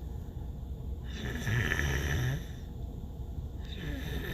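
A woman snoring in her sleep: one snore about a second in, lasting over a second, and the next one starting near the end.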